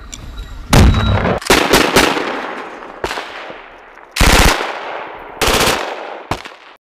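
A light machine gun fires about five short bursts of automatic fire, each rolling away in an echo.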